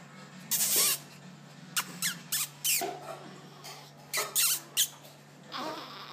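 Squeaky yawning: a few short, high, rising squeaks mixed with breathy puffs, coming in two clusters.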